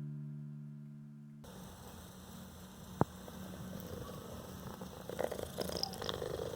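Background music dies away, then a domestic cat purring close to the microphone, with a single sharp click about three seconds in.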